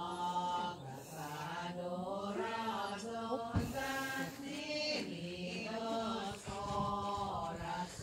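Voices singing a slow, chant-like hymn, holding long notes and gliding between them.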